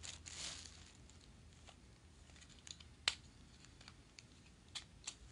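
Small plastic clicks from a lipstick tube and its cap being handled, with a brief rustle under a second in; the sharpest click comes about three seconds in, and two more come near the end.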